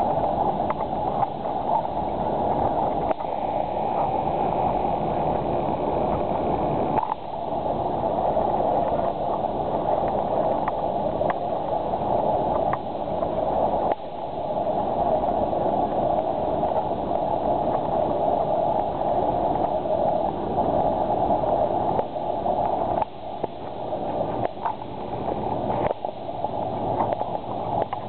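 Motorboat running at speed, its engine mixed with water rushing and splashing against the hull. The sound is steady, with abrupt breaks a few times where it drops and picks up again.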